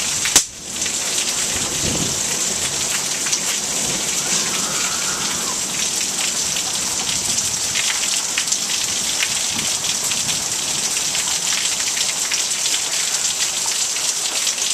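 Heavy rain pouring steadily during a thunderstorm, an even hiss with many small drops ticking close to the microphone as they strike the wet camera. A single sharp knock comes about half a second in.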